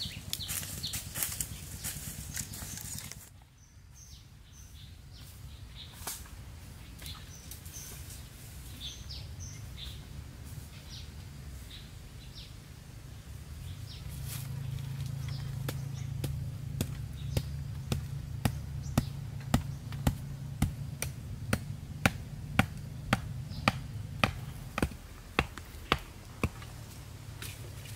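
Blade chopping a green bamboo stalk: a steady run of sharp strikes, about two a second, through the second half.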